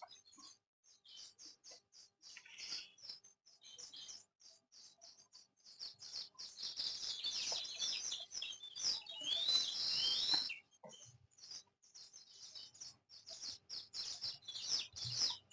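Birds chirping: a steady string of short, high chirps, busiest and loudest from about six to ten seconds in, with a few rising whistled notes.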